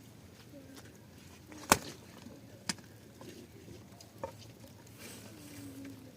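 A few short, low animal calls, with a longer one near the end, among a few sharp knocks; the loudest knock comes nearly two seconds in.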